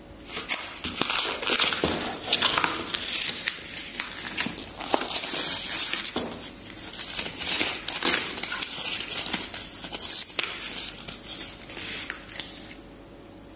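Vacuum-sealed plastic steak packaging and its plastic tray crinkling and crackling in irregular bursts as a hand handles them, stopping shortly before the end.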